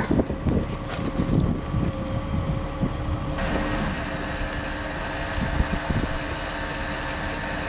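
Wind buffeting the microphone in low rumbling gusts, under a faint steady hum. About three and a half seconds in the sound changes abruptly to a steadier, even hiss.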